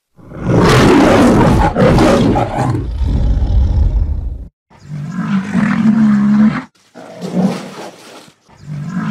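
Lion roaring: one long, loud roar of about four seconds, then a few shorter, lower roaring grunts with brief pauses between them.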